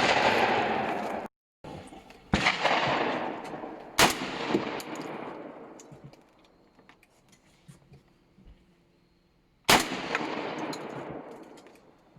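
Semi-automatic 12-gauge shotgun firing three separate shots, about two, four and ten seconds in. Each shot trails off in a long echo, and there are faint small clicks between the second and third.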